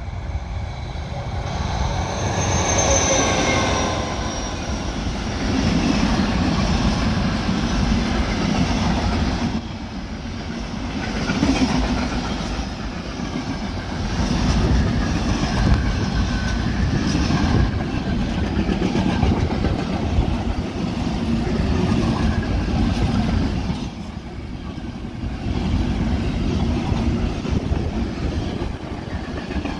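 A "brejlovec" diesel locomotive passes close by hauling a container freight train, its engine note falling in pitch as it goes past a few seconds in. A long string of container wagons follows, rolling by with a steady rumble and wheel clatter that swells and ebbs.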